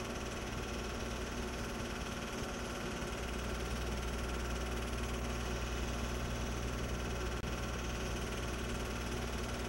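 Home movie film projector running: a steady low mechanical hum over an even hiss, growing slightly stronger about three seconds in.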